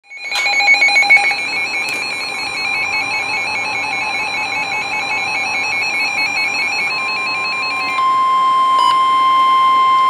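NOAA weather radios, among them a Midland, going off for a severe thunderstorm warning. A fast two-tone warbling alarm is followed about eight seconds in by the steady 1050 Hz NWS warning alert tone, which signals that a warning is about to be read.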